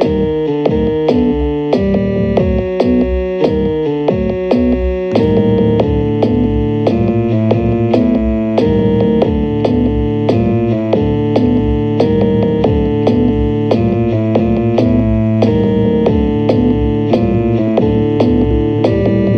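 Instrumental electronic music: synthesizer and keyboard chords over a steady drum-machine beat, with a fuller bass part coming in about five seconds in.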